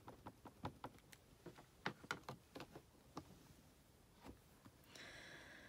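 Faint, irregular light taps from inking a rubber stamp with a StazOn ink pad, over the first three seconds, then near silence with a faint high hum near the end.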